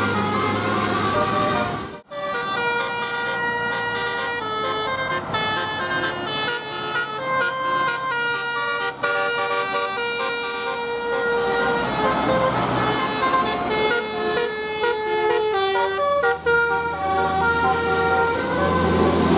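Bus 'telolet' horn: a set of multi-tone air horns playing a tune of stepped notes, several sounding together, over the steady hum of the bus's engine. A short break about two seconds in.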